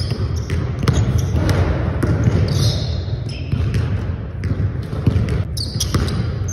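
Basketball dribbled on a hardwood gym floor, bouncing irregularly during a one-on-one move, with short high sneaker squeaks on the floor twice, over a steady low rumble.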